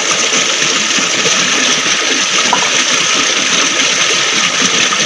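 Stream water rushing over rocks, a steady, even rush with no breaks.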